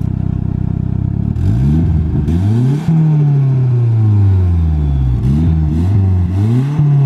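Turbocharged Nissan SR20 four-cylinder engine in an S14 Silvia, heard through a Varex valved muffler with the valve open, revving hard: the pitch climbs steeply about a second in, falls away, then climbs and drops twice more near the end. Short bursts of hiss come at the top of the pulls.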